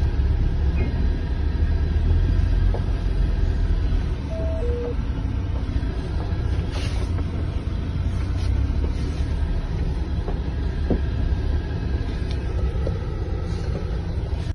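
Car driving over rough ground, heard from inside the cabin: a loud, steady low rumble of engine and road, with a few light knocks. A short two-note beep, the second note lower, comes about four and a half seconds in.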